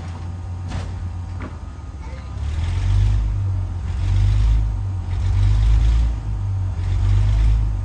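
Brill interurban car No. 120 straining against a coupled heavy diesel locomotive: a steady low hum with two sharp clanks in the first second and a half, then from about two and a half seconds in, four surges of heavy low rumble and rushing noise, about a second each. This is its wheels slipping on the rails under the heavy load.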